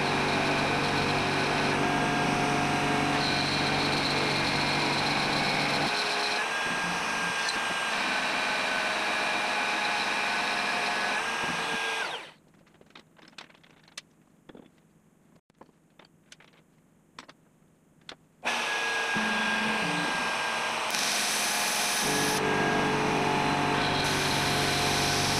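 Router spindle on a DIY CNC router running at high speed while its end mill cuts an aluminium plate on a contour pass, a steady whine. About halfway it cuts off suddenly to near quiet with a few small clicks for about six seconds, then comes back. Near the end compressed air hisses from a blow gun over the cut, in two spells.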